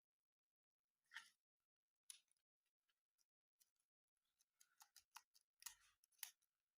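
Faint, scattered clicks and rustles of packaging being handled: single ones about a second and two seconds in, then a quicker run of them near the end.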